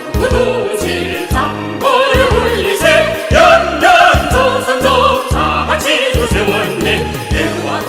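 Upbeat square-dance music with a steady bass beat about twice a second and a singing voice carrying the melody.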